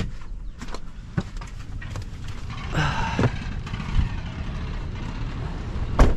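Wind rumbling on the microphone, with scattered clicks and knocks as people get out of a camper van, and a loud knock near the end, the van door being shut just before it is locked.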